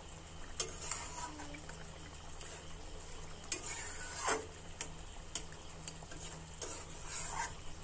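A spatula stirs and scrapes through a thick curd-based fish curry in a wok, with scattered light taps and scrapes against the pan while the gravy simmers.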